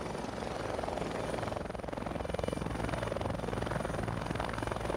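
Helicopter running steadily: a fast, even rotor chop with a thin, steady high whine above it.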